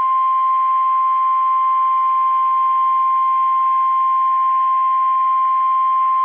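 NOAA Weather Radio 1050 Hz warning alarm tone: a single steady high tone held without a break, over faint radio hiss. The tone signals that an emergency warning is about to be broadcast.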